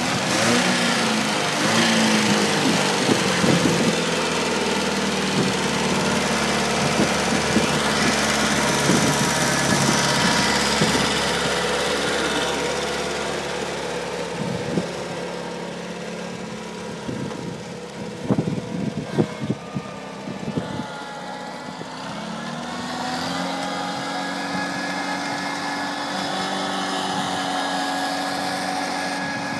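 Four-cylinder Datsun A12 engine of a mini Cat Challenger tracked tractor running steadily, with a cluster of sharp knocks and rattles around the middle. A little past two-thirds in the engine revs up and holds the higher speed as the tractor pulls the potato plow.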